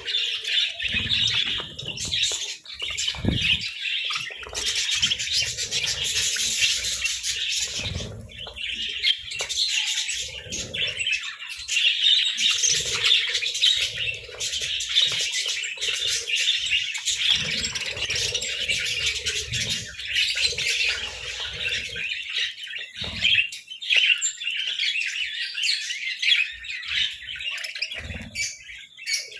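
A group of budgerigars chirping and chattering without pause, with scratchy squawks mixed in and low thuds now and then.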